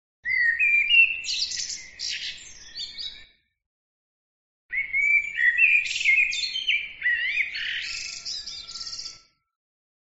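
A songbird singing two phrases a second and a half apart, each starting with whistled, gliding notes and running into high twittering.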